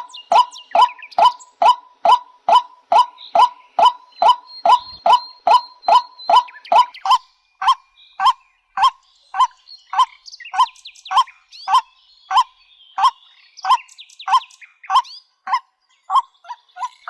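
A waterhen calling: one short, hoarse note repeated over and over at an even pace, about three a second at first and slowing to about two a second. Fainter, higher calls from other birds sound behind it.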